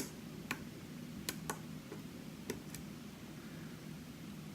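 Lock pick clicking against the pins inside Albert Lebel's Reckless challenge lock: a handful of faint, separate ticks spaced irregularly, a few in the first two seconds, over a low steady hum.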